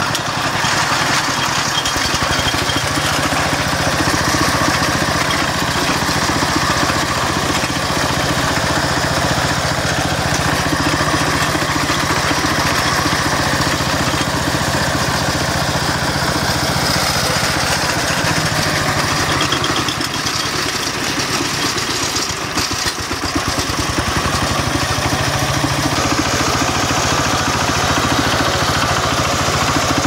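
Single-cylinder diesel engine of a Kentavr MB 1010DE-6 walk-behind tractor running steadily under load while pulling a vibrating riddle potato digger through dry soil, with a short dip in level a little over twenty seconds in.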